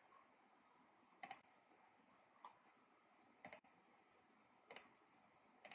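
Faint computer mouse clicks, five of them about a second apart, several heard as a quick press-and-release double tick.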